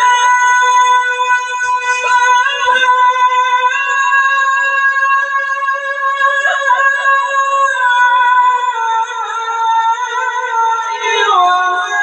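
Quran reciter's voice drawing out long, high melodic notes in tajweed style, with a quick wavering ornament around the middle and a step down in pitch twice in the second half.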